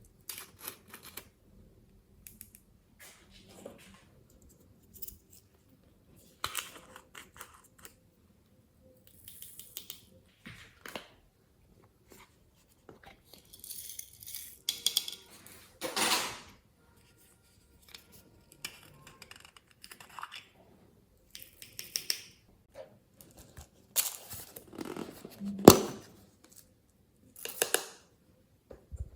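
Glossy slime being handled and mixed: irregular sticky crackles, squishes and pops coming and going, with a sharp click just before 26 s the loudest.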